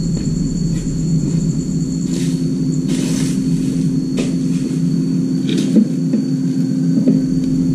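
Steady low mechanical hum with a faint high, thin whine over it, broken by several brief rustles and clatters of hoses and tools being handled.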